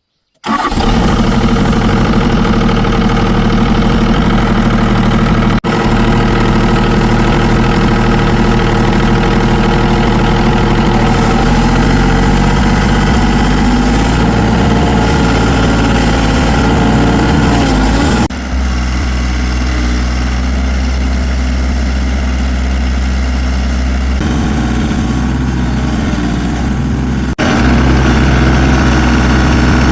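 A vehicle engine running steadily. It starts abruptly just after the start, and its sound shifts suddenly about two-thirds of the way through and again near the end.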